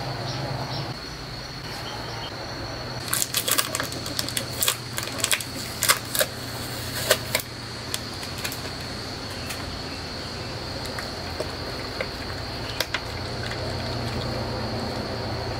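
Irregular sharp clicks and crackles of a plastic bottle being gripped and handled, densest in the first half and thinning to a few scattered clicks, over a steady high-pitched background tone and a low hum.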